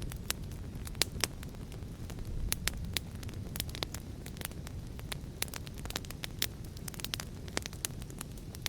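Fire crackling, with sharp irregular pops several times a second, over a steady low rumble of wind.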